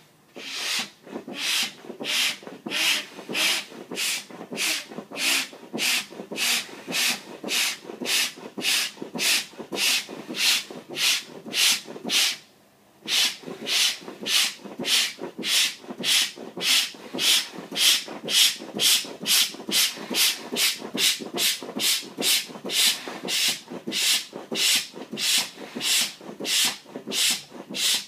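High-volume foot pump worked at about two strokes a second, each stroke a hiss of air forced through its hose into a pack raft's large valve, over the rustle of the raft's fabric. The pumping breaks off for about half a second about halfway.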